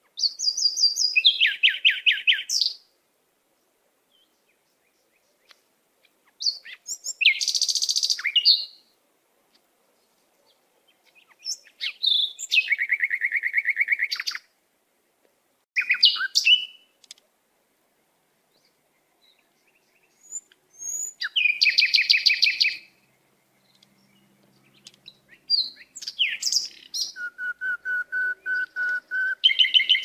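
Small songbird singing in short phrases of rapid, high trilled notes, each two to three seconds long, with pauses of a few seconds between them. A lower, evenly paced trill comes near the end.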